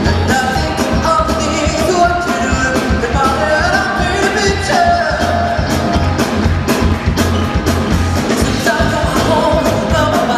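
Live pop music: a male singer performing over a band with a steady, driving drum beat.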